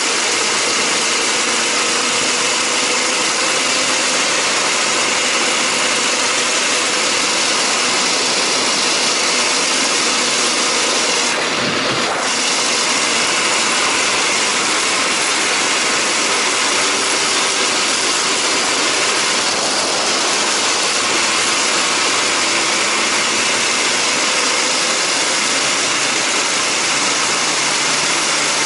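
Bars Sledopyt motor-towing unit's engine running steadily at low throttle while it tows a sledge loaded with firewood over snow, its track and runners moving through the snow.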